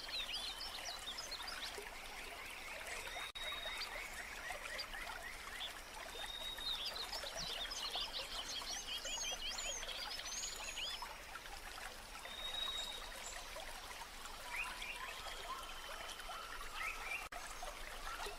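A small stream trickling steadily, with several birds singing over it: rapid trills and chirps, and now and then a short high whistle.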